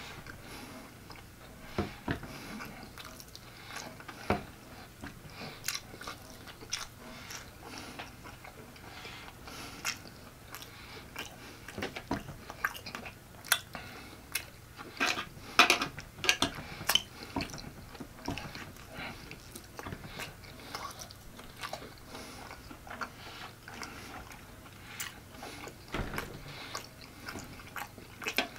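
A person eating saucy barbecue pork: wet chewing and lip smacking in irregular clicks and smacks, busiest about halfway through.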